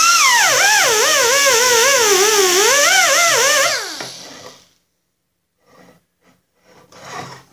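Air-powered right-angle die grinder with a wire brush whining at high speed against a painted Snapper chain case, stripping the paint, with a loud air hiss; its pitch wavers up and down as the brush is pressed on and eased off. It shuts off a little under four seconds in and spins down, followed by a few faint handling sounds near the end.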